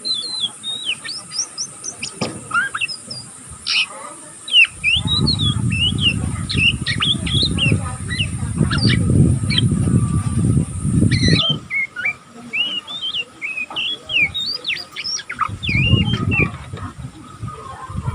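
A young oriental magpie-robin twittering in quick short chirps that sweep up and down. This is the 'ngeriwik' chatter of a bird still learning its song. A low rumble sounds under it from about five to eleven seconds in, and again briefly near the end.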